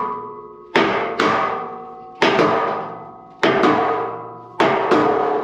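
Sledgehammer blows on wooden blocks, driving a steel winch wall into place inside a metal semi trailer: six heavy strikes at uneven spacing, about one a second. Each strike leaves the steel trailer ringing like a bell, fading out before the next.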